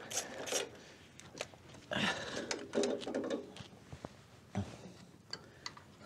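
Scattered light clicks and clinks of a hand ratchet and loose metal parts being handled at the cylinder head of a VW Beetle engine, with short rustling sounds in between.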